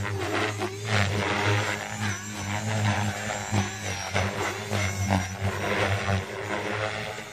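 Align T-Rex 470 electric RC helicopter flying hard aerobatic manoeuvres: its rotor and motor sound surges and fades over and over, with the pitch sliding up and down as the head is loaded and unloaded.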